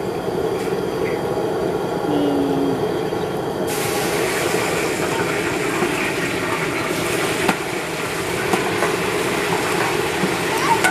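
Steady rushing of the burner under a large cazo of lard for carnitas, joined about four seconds in by a louder hissing sizzle as pork chunks go into the hot fat and are stirred with a long paddle.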